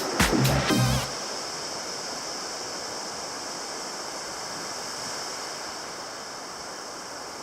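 Steady rushing wash of ocean surf; background music with drum hits cuts off about a second in.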